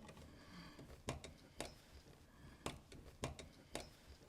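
Faint, irregular clicks and ticks of screws being snugged down on the cap of a three-phase immersion heater's terminal housing, about half a dozen small clicks spread over a few seconds.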